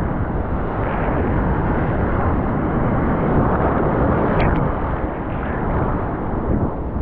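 Strong wind buffeting the microphone over the steady rush of breaking surf.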